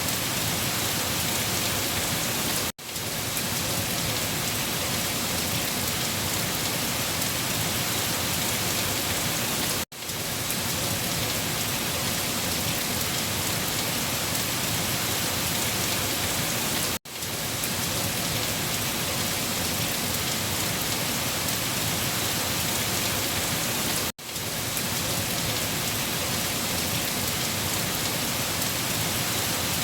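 Heavy rain falling steadily on leaves, an even hiss of many drops, cut by a brief gap about every seven seconds.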